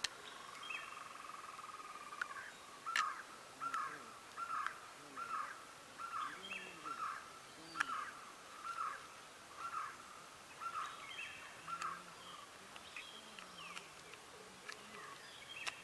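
A bird calling outdoors in an even, repeated series of short calls, about three every two seconds, starting about three seconds in and running until near the end, with a few faint clicks among them.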